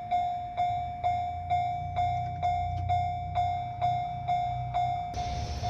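Japanese level crossing warning bell ringing at about two strikes a second over a low rumble. About five seconds in, the noise of the EF210-hauled freight train reaching the crossing suddenly cuts in.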